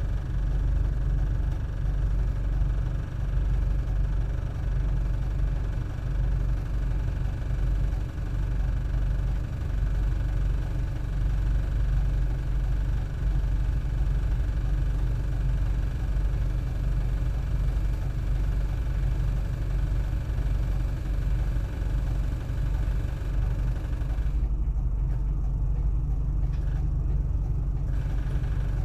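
Highway coach's diesel engine idling while the bus stands still, a steady low rumble heard from inside the passenger cabin. The fainter hiss above it drops away in patches near the end.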